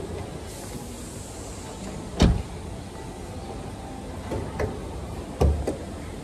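A few dull thumps and knocks over a steady background hum. The two heaviest come about two seconds and five and a half seconds in, with lighter taps in between.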